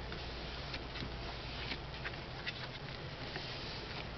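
Paper and cardstock handled on a work surface: faint rustling and a few light ticks as a glued page flap is pressed down flat, over a steady low room hum.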